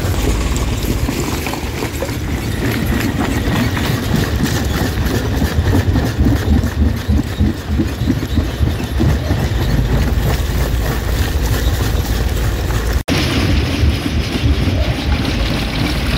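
Rock crusher running under load: a heavy low rumble with dense, irregular cracking and clattering of stone being broken, broken by a momentary drop-out about thirteen seconds in.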